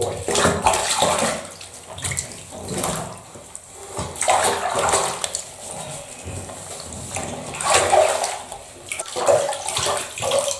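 Shallow bathwater splashing and sloshing in a bathtub as hands scoop and work water over a wet cat to rinse out shampoo, in a series of separate splashes a couple of seconds apart.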